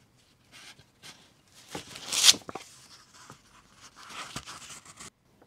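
Waxed linen thread drawn through the sewing holes in the folded paper of a handmade notebook, with rustling of the paper as it is handled. There are several rasping pulls: the loudest comes about two seconds in, and another longer stretch stops abruptly near the end.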